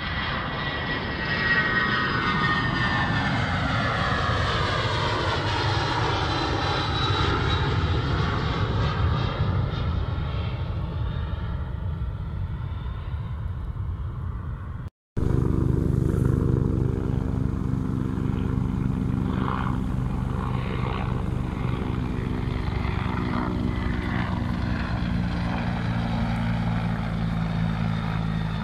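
A jet airliner climbing out after takeoff, its engine roar falling in pitch as it passes and then fading. After a sudden cut about halfway through, a helicopter passes overhead with a steady engine hum over the regular beat of its rotor.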